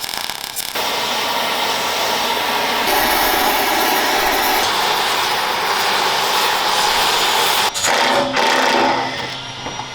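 A power tool running on a stuck bolt in steel armour plate, a dense steady grinding noise that stops briefly near the end and starts again before dying away.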